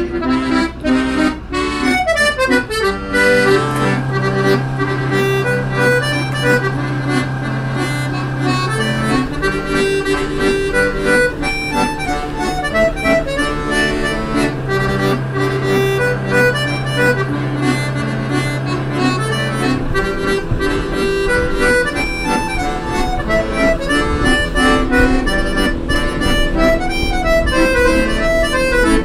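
Background music: a melody over long held bass notes, with the bass changing note a few times.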